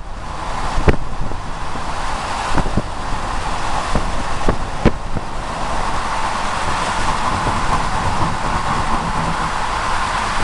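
Steady outdoor background noise with a handful of sharp knocks in the first five seconds.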